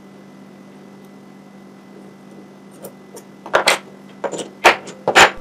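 Tools and small parts being handled on a wooden workbench: a low steady hum, then from about three and a half seconds in a handful of sharp clacks and clatters as things are picked up and set down.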